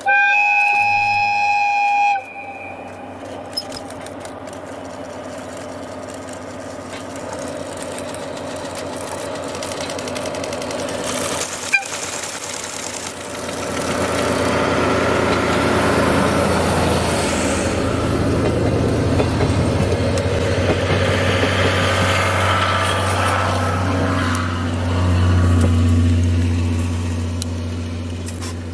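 A DE10 diesel-hydraulic locomotive sounds one horn blast of about two seconds, then runs past hauling its coaches, the engine and the wheels on the rails getting louder as it approaches, loudest in the second half, and fading near the end.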